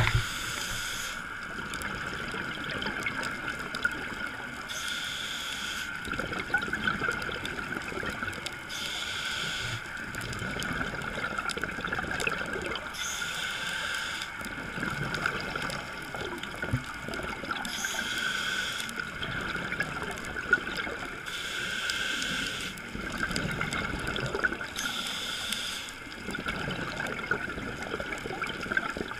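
Scuba diver breathing through a regulator underwater, picked up through the GoPro's housing: a hiss about every four seconds, seven times, with bubbling and gurgling from the exhaled air in between, over a steady hum.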